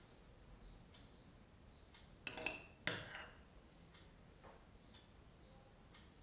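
Faint clinks of a metal spoon against white ceramic bowls as spoonfuls of curd are served onto a plate of fried potato chaat: two small clinks a little over two seconds in and at about three seconds, a softer tap later, otherwise very quiet.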